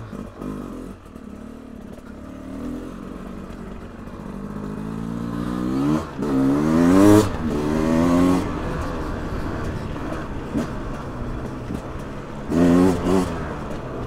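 Beta RR 300 two-stroke single-cylinder enduro motorcycle engine pulling away at low revs, then revving up in a series of rising pulls, loudest about seven seconds in. It settles to a steadier run, with another short burst of revs near the end.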